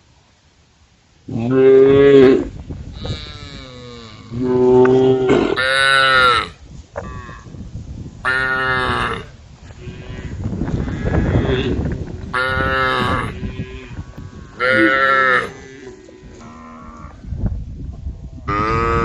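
Cattle mooing: about seven loud calls a couple of seconds apart, each lasting around a second, with a rustling noise between them near the middle.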